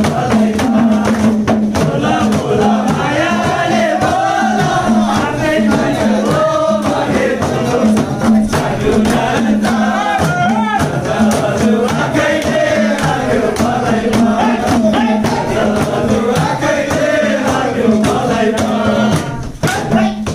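Music with singing and a steady beat, loud throughout, dropping away shortly before the end.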